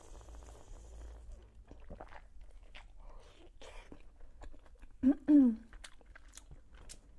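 Close-up mouth sounds of eating a boiled khinkali dumpling: wet chewing and small sharp clicks and smacks. About five seconds in, a short two-part hum from the eater's voice, falling in pitch, is the loudest sound.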